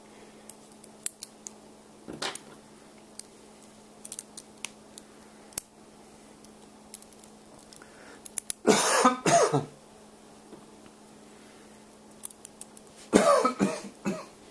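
Light metallic clicks of a small metal robot kit's plates and screws being handled, broken by a man clearing his throat twice, loudly, about nine and thirteen seconds in. A faint steady hum runs underneath.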